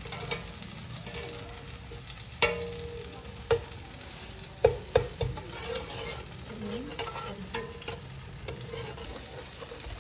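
Food sizzling in a hot pan with a steady hiss while it is stirred, the utensil knocking sharply against the pan a few times, the loudest knocks a couple of seconds in and around the middle.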